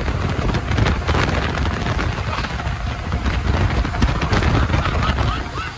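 Automatic car wash machinery running over the car, heard inside the cabin with the sunroof open: a loud rushing noise with a deep rumble that drops in level just before the end.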